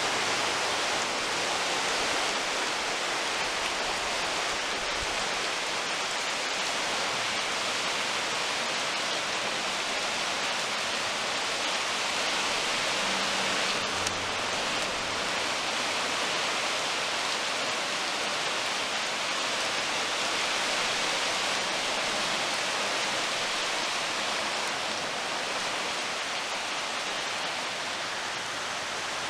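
Swollen, flooding creek water rushing and churning against a concrete bridge pier: a steady rushing noise.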